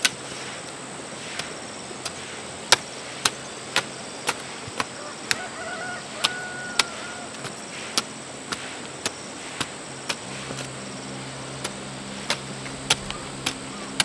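A run of sharp chopping strikes, about two a second with short pauses, over a steady hiss of heavy rain. A low hum comes in about ten seconds in.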